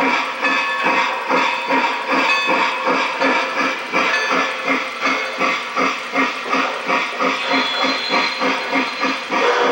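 Lionel Legacy O-scale Nickel Plate Road Berkshire model steam locomotive's onboard sound system playing a rhythmic steam chuff, about three chuffs a second, as the engine runs. A steady whistle tone starts right at the end.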